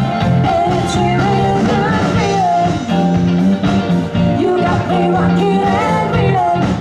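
Live rock-pop band: a woman singing lead over electric guitars, drums and keyboard.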